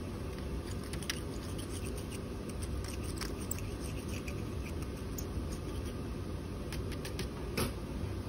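Metal spatula scraping and tapping naphthalene crystals off the inside of an evaporating dish, a run of small scratches and clicks with a sharper knock near the end, over a steady low background hum.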